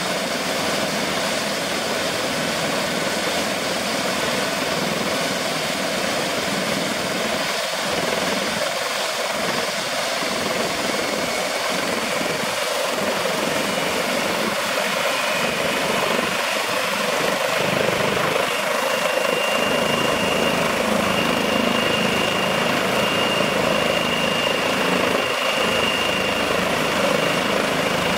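Eurocopter EC135 P2+ helicopter running on the ground with its twin turboshaft engines and main rotor turning: a steady turbine and rotor noise. About two-thirds of the way through, a high steady whine comes in and the sound grows slightly louder.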